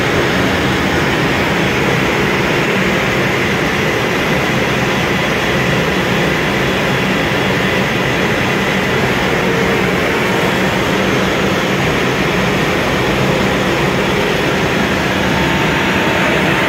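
Flatbed CNC cutting table milling ABS sheet: a loud, steady rush of machine noise with a low hum underneath, unbroken and even throughout.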